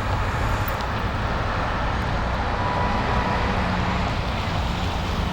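Steady street traffic noise with a constant low rumble of passing vehicles.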